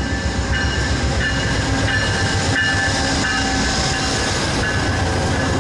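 VIA Rail passenger coaches rolling past with a steady rumble of wheels on rail, and thin high squeals that come and go.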